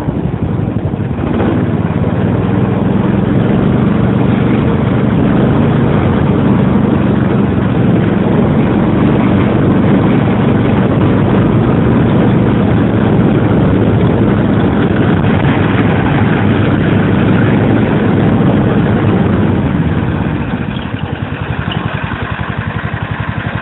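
Small snowmobile engine running steadily under way along a snowy trail, then easing off to lower revs about 20 seconds in as the machine slows.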